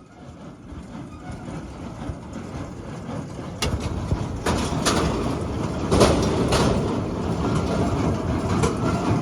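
Hesston 1840 inline baler working through hay, a steady mechanical rumble and clatter that grows steadily louder as it comes closer. From about a third of the way in there are several sharp metal clanks, bunched in the middle and one more near the end.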